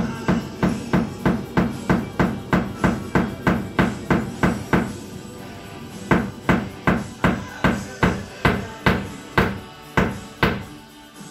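Hammer driving a nail into a wall: a steady run of sharp blows at about three a second, a pause about five seconds in, then about ten more blows. Music plays underneath.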